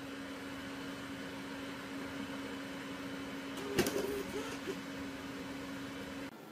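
Steady low hum in a quiet room, with one sharp click about four seconds in and a few faint short chirp-like tones just after it; the hum cuts off near the end.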